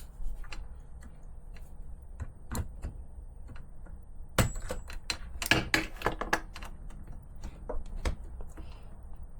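Irregular clicks and taps of small plastic and metal parts being handled while ball-cup suspension links are fitted onto a Schumacher Menace RC car, with a cluster of sharper knocks about four and a half to six and a half seconds in.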